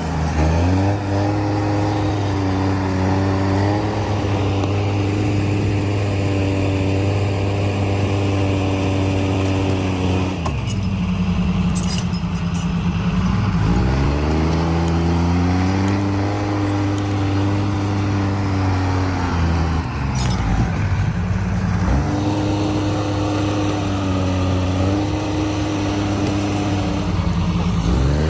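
Timberjack skidder's diesel engine working on a steep slope, its pitch rising and falling as it revs up and drops back several times.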